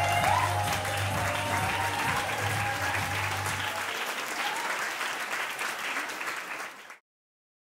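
Audience applauding, with the last notes of the dance music dying away in the first moments. The applause cuts off abruptly near the end.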